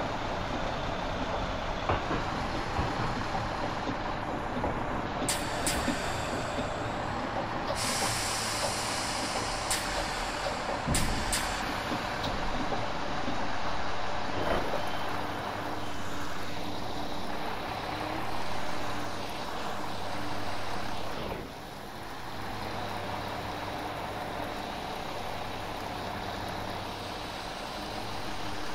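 Class 172 Turbostar diesel multiple unit with its diesel engine running steadily. Air hisses out in short spurts and in one longer, louder blast about 8 seconds in, as the air brakes release.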